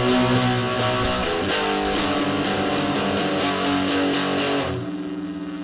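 Instrumental alt-folk music led by strummed guitars with bass. It turns quieter and thinner near the end, as the low notes drop out.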